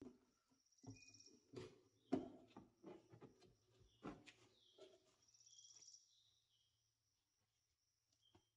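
Quiet handling of a fibreboard back panel being pried loose and lifted off an old wooden speaker cabinet: a string of light knocks, taps and scrapes of board on wood, with two faint scraping rasps. One small knock near the end.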